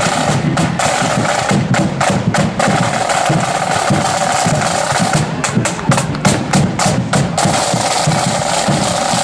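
Marching band side drums playing rapid rolls and rudiments over a bass drum beat, with long sustained pitched notes sounding above the drums for most of the time.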